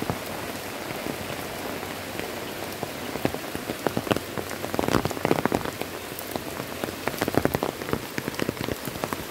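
Heavy rain falling steadily, a dense even hiss on the wet road and foliage, broken by scattered louder taps of close drops that bunch together about five seconds in and again near the end.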